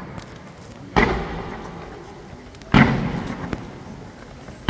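Aerial firework shells bursting: loud booms about a second in, again near the three-second mark and once more at the very end, each trailing off over a second or so. Faint crackles between the booms.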